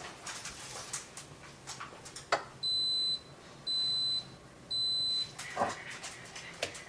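Cappuccino machine beeping three times, even high-pitched beeps about a second apart, signalling that the brew is done. Light clicks and a sharp knock come before the beeps.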